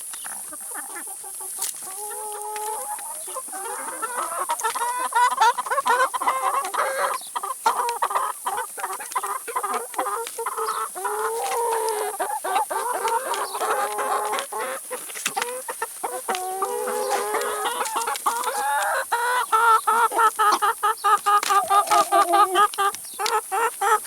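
A group of chickens clucking and calling over one another while they feed, with many sharp pecking taps. The calls grow busier about four seconds in, and near the end they come in a quick, regular run of about three a second.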